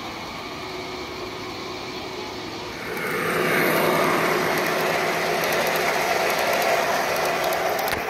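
G-scale model train rolling past: the MTH GE Dash 8-40C locomotive's drive and the hopper cars' wheels rattling and whirring on the rails. The sound gets louder about three seconds in, as the train comes close.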